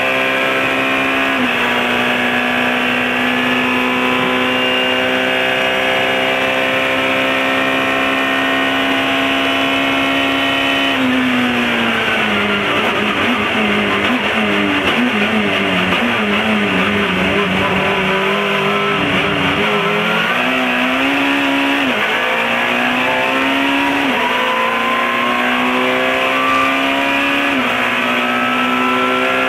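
In-car sound of an Alfa Romeo 156 Super 2000 touring car's 2.0-litre four-cylinder race engine at full throttle, with one upshift about a second and a half in. About ten seconds in, the revs fall through a run of downshifts under braking for a corner, then climb again through several quick upshifts as the car accelerates out.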